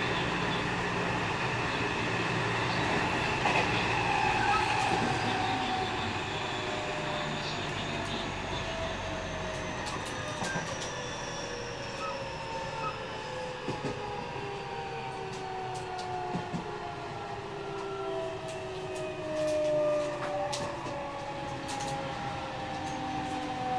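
Onboard a JR West 207 series 1000 subseries EMU: its unrenewed Toshiba GTO-VVVF inverter and traction motors whine in several tones at once, all falling steadily in pitch as the train slows. Sharp clicks from the wheels on the track come in the second half.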